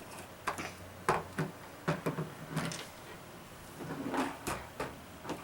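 A string of irregular knocks and clatters, about a dozen short sharp hits over a few seconds, some with a dull thud under them: household objects being handled and knocked about.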